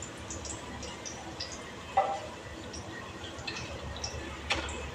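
Fish frying in oil in a pan, giving small crackles and spits, while a metal turner clinks sharply against the pan twice: about two seconds in and again near the end.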